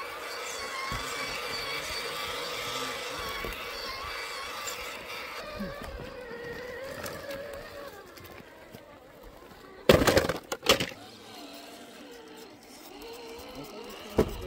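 Electric motor and gearbox whine of a radio-controlled scale crawler truck, wavering with the throttle as it creeps along. About ten seconds in come two loud sharp cracks close together, and another shorter one near the end.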